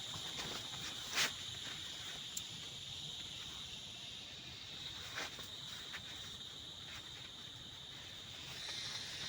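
Steady high-pitched insect chorus, a continuous trill, with a few sharp clicks or knocks over it, the loudest about a second in and another around five seconds in.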